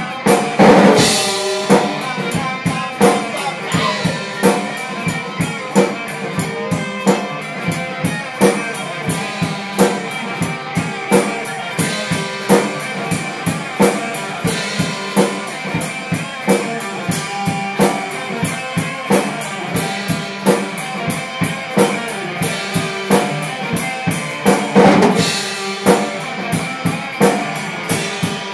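Band playing live: a drum kit keeping a steady beat of about two hits a second, with bass drum and rimshots, under guitar.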